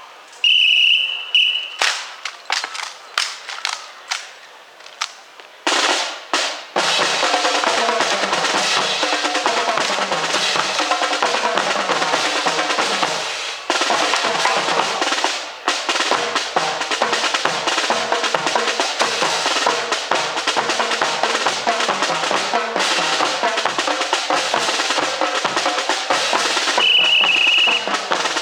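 Marching drums playing a cadence: a few separate sharp strikes, then from about six seconds a continuous snare drum rattle over a steady bass drum beat. A short, steady, high whistle-like tone sounds once about half a second in and again near the end.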